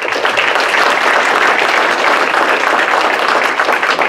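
Audience applauding: dense, steady clapping from many hands that starts suddenly.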